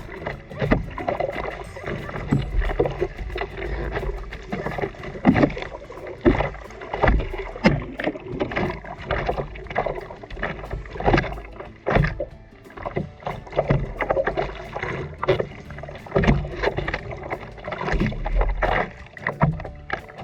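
Seawater splashing and sloshing around a surfboard being paddled through ocean swell, in many irregular splashes.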